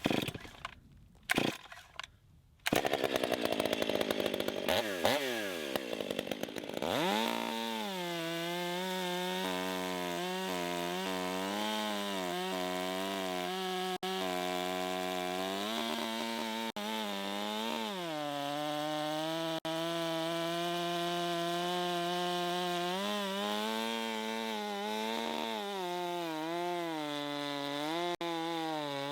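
A large Stihl chainsaw starts up about three seconds in after some handling clicks, revs, then runs steadily while cutting a big log, its pitch dipping and recovering again and again as the chain loads up.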